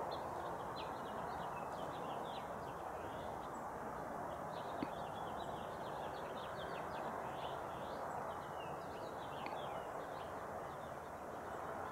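Many short, high bird chirps in quick, irregular succession over a steady background hiss of outdoor noise.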